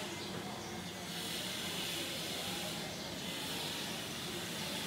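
Steady, even hiss of background room ambience with no distinct event.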